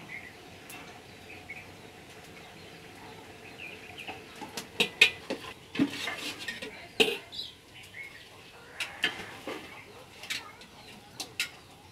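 A metal spoon stirring meat curry in a cooking pot, clinking and scraping against the pot, with a run of sharp, uneven clinks from about four seconds in.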